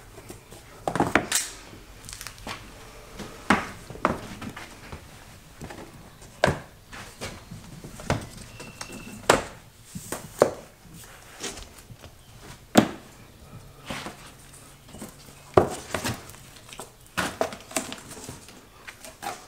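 Click-lock floor planks being pried apart and lifted off a wooden subfloor by hand, then dropped onto a stack: a run of separate sharp clacks and knocks at irregular intervals.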